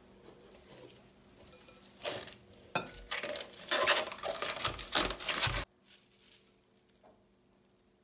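Hands rummaging and stirring in a glass bowl of a dry white ingredient, with dry rustling and light scraping against the glass from about two seconds in, stopping abruptly about three and a half seconds later.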